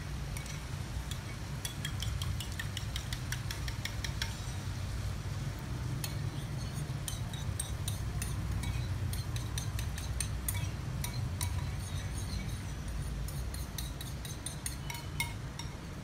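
Metal spoon clinking and scraping against a bowl in many quick light taps as a runny mixture is scooped out, the taps coming more often in the second half. A low steady rumble runs underneath.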